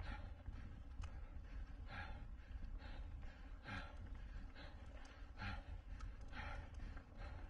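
A rider's heavy, rhythmic breathing under hard effort, about one forceful breath a second, over a steady low rumble.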